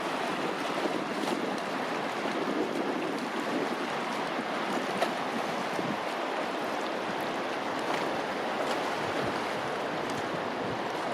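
Colorado River water flowing past, a steady rushing noise.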